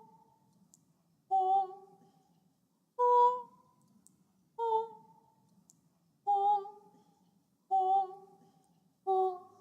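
Auddict Celestial Voices 'Calypso' sampled female vocal patch played as six short notes, about one every second and a half, each a brief sung tone that dies away quickly. Faint, sharp high clicks sound in the gaps between some notes: click artifacts in the samples.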